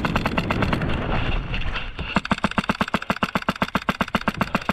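Airsoft rifle firing on full auto, a fast even rattle of about a dozen shots a second that keeps up with only a brief slackening about two seconds in.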